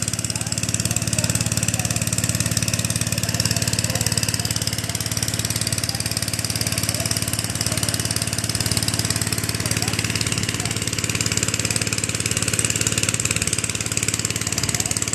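Small gasoline engine of a portable water pump running steadily at a constant speed, pumping water out of a fish pond through a hose.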